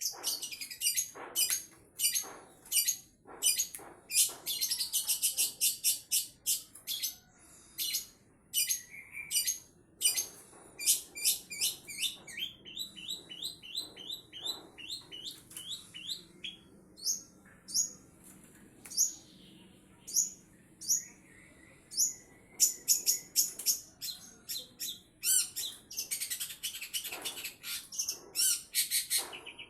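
Long-tailed shrike (cendet) singing a rapid, varied song of harsh chattering and high chirps: the coarse 'isian kasar' fill of mimicked notes. In the middle comes a run of about a dozen repeated falling notes, then sparser sharp calls, and the song turns dense again later on.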